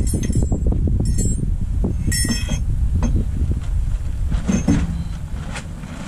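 Steel parts of a backhoe boom hydraulic cylinder clinking as the piston-and-rod assembly is handled and fed into the cylinder barrel. There are three sharp metallic clinks in the first two seconds, the one about two seconds in ringing longest, then fainter knocks, over a steady low rumble.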